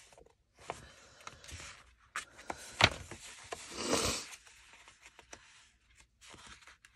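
Sheets of paper rustling and sliding as they are handled and sorted, with a sharp tap a little before three seconds and a louder rustle about four seconds in.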